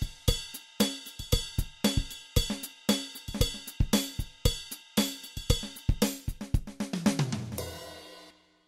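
Background instrumental music with a steady drum-kit beat and cymbals; about seven seconds in the drums give way to a falling sweep.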